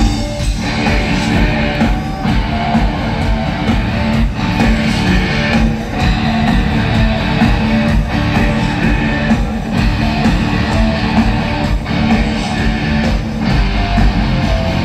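Live band music played loudly through a concert PA, heard from within the audience, with guitar to the fore.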